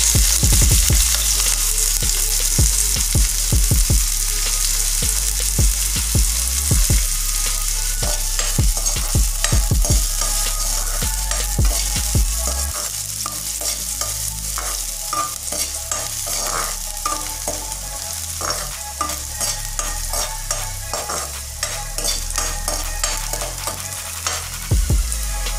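Chopped garlic, ginger and green chillies sizzling in hot oil in a kadai, while a metal spoon stirs them, scraping and clicking against the pan over and over.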